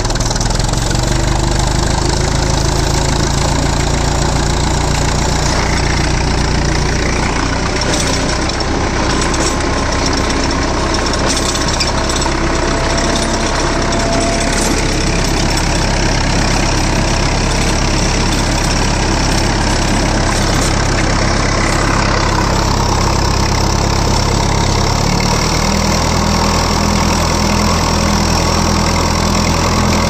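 Massey Ferguson 65 tractor's four-cylinder engine running steadily while pulling a plough, heard from the driver's seat close to the exhaust stack. The engine note changes about 25 seconds in.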